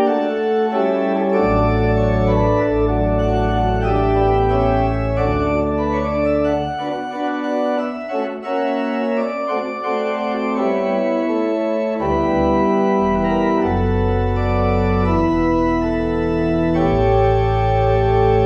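Organ playing the postlude: held chords over deep pedal notes, which drop out for several seconds in the middle and come back.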